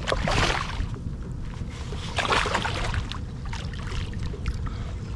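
Water splashing twice beside a kayak, about two seconds apart, over a steady low rumble of wind on the microphone.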